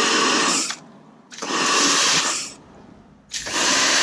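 Kärcher pressure washer spraying through a drain-cleaner hose with a pierced brass nozzle, fired in short bursts: a loud hissing jet of water. The jet cuts off under a second in, runs again for about a second, and starts again near the end.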